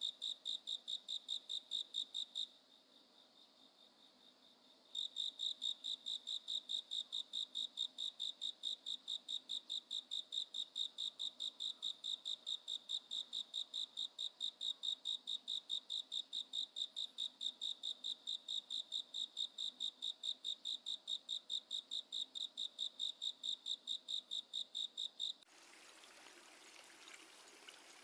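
A cricket chirping, a steady train of short high-pitched chirps at about four a second. The chirps pause for a couple of seconds near the start, then stop about 25 seconds in, where a steady hiss takes over.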